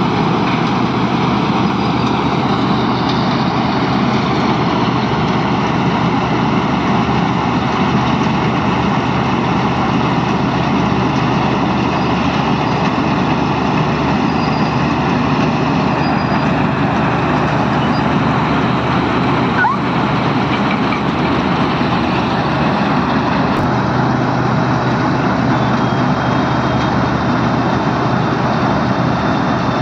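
Self-propelled combine harvester cutting a rice paddy crop: its engine and threshing machinery run with a loud, steady drone.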